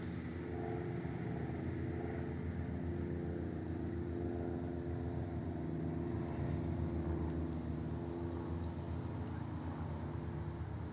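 Car driving at a steady speed: a constant engine drone with tyre and road noise.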